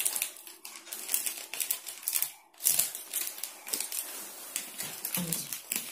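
Hands handling a bangle and its plastic wrapping: irregular crinkling and rustling with scattered light clicks as the bangle is unwrapped and slipped on.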